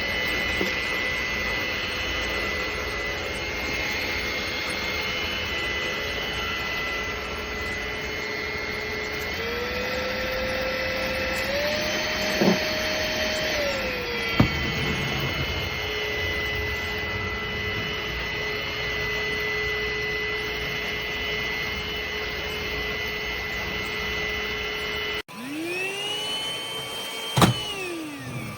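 Trucozie cordless stick vacuum's motor running with a steady high whine. About ten seconds in, its pitch steps up twice to a higher speed, then drops back a couple of seconds later with a click. Near the end the motor spins up and winds back down.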